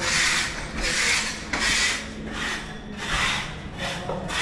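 Repeated rasping strokes, about one and a half a second, of a worker scraping by hand at a bare floor bed where the tiles have been lifted.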